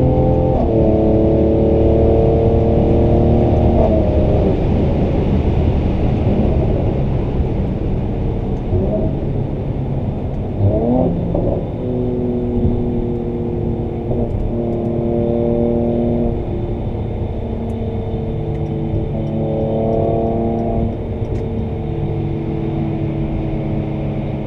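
Inside the cabin: the twin-turbo V6 of a 2017 Mercedes-AMG C43 with the AMG Performance Exhaust, driven hard, its note holding fairly steady pitches that jump several times, with a quick rise in revs near the middle. Steady road and tyre rumble underneath.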